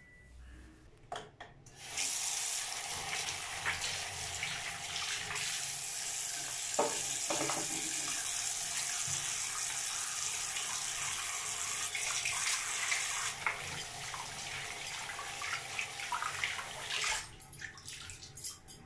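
Water running from a tap into a bathroom washbasin as hands are washed under the stream. The tap comes on about two seconds in, runs steadily, and is shut off a couple of seconds before the end.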